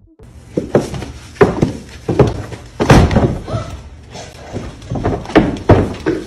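A series of loud, irregular thumps and knocks, about seven of them spread over several seconds.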